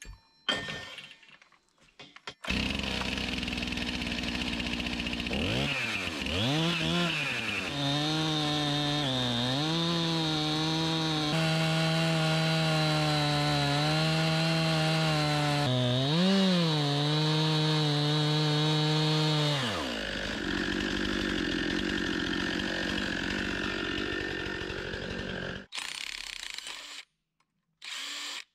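Chainsaw in a Granberg chainsaw mill running at high speed while ripping a log lengthwise into boards. Its pitch sags and recovers twice as the cut loads the engine. Near the end it runs on more quietly without its steady note, then cuts off suddenly.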